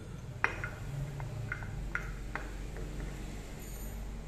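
Metal tools or parts clinking lightly about six times in the first couple of seconds, the first the loudest, over a low steady hum.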